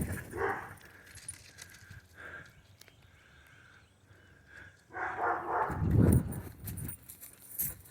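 A dog making short vocal sounds about half a second in and again around five seconds in. Between them it is mostly quiet, and a burst of low thudding or rustling comes around six seconds.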